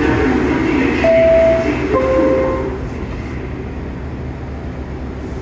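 New York City subway car's two-tone door-closing chime, a higher tone followed by a lower one, as the doors close. The car's steady hum goes on underneath, a little quieter once the doors are shut.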